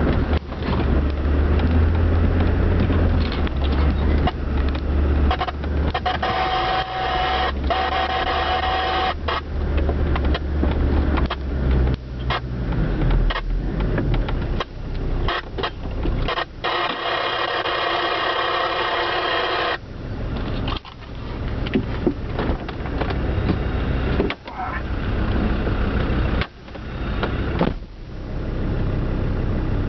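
A 4x4's engine running slowly on a rough off-road track, heard close up, with frequent knocks and rattles as it goes over bumps. A deep engine drone is strong for the first dozen seconds, then gives way to a lighter running noise.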